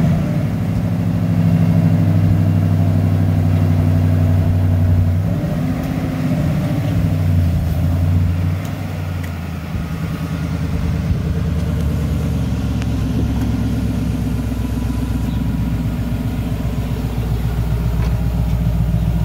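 Ford Mustang Boss 302's 5.0-litre V8 running just after starting, at a steady idle. About five to eight seconds in its pitch rises and falls, then it settles to a quieter, steady idle.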